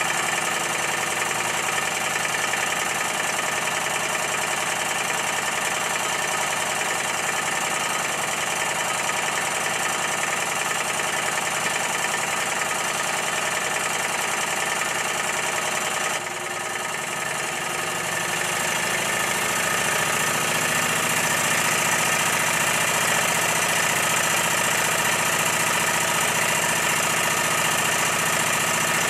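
Scratch-built brass 'Minnie'-type live steam model traction engine running under steam on the bench, a steady mechanical running sound of its engine and gearing. About halfway through it dips briefly, then carries on slightly louder and fuller.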